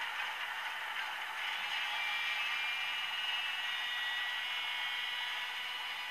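The Piko sound decoder in an H0 model of a BR 232 diesel locomotive playing its simulated diesel-locomotive sound through the model's small loudspeaker: a steady, thin hiss with no bass, joined by a high steady whine about a second and a half in.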